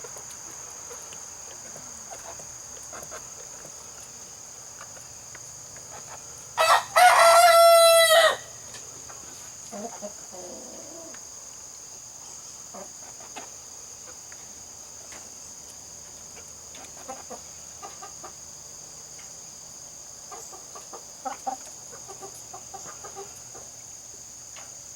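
An Australorp rooster crows once, about seven seconds in: a loud call lasting under two seconds. Under it runs a steady high drone of crickets, with a few soft clucks from the flock.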